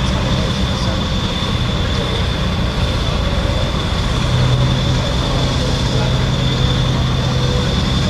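Marine diesel engines of a naval fast attack craft and its attending harbour tug running at low speed as the ship manoeuvres. A steady low rumble with a constant high whine; the low hum grows stronger about four seconds in.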